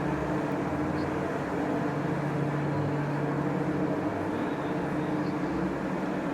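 Steady background drone of a large store's interior, an even noise with a constant low hum.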